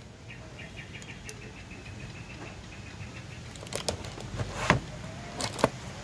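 Hands handling a cardboard box and its packaging: a few light knocks and rustles in the second half, over a faint, rapidly pulsing insect chirr in the background.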